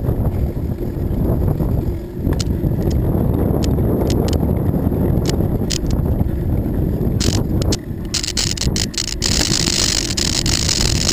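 Steady wind rumble on the microphone of a camera carried on a moving bicycle, with scattered clicks and rattles. About eight seconds in, a brighter hiss and a quick run of clicks join as the tyres roll onto the boards of a wooden bridge deck.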